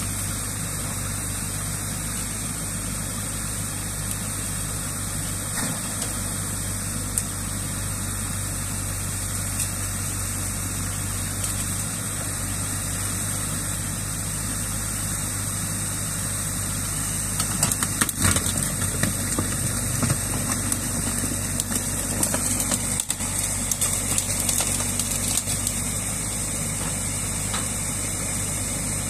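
Crawler excavator's diesel engine running steadily over water rushing through a breach in a beaver dam. In the second half comes a spell of irregular knocks and cracks as the bucket tears at the dam's packed sticks.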